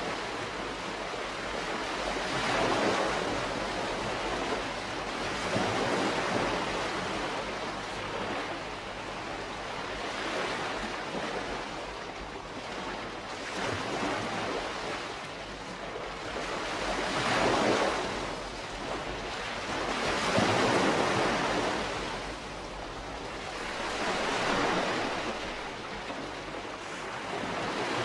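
Calm sea wash: small waves washing in and drawing back, the hiss of water swelling and fading every three to four seconds.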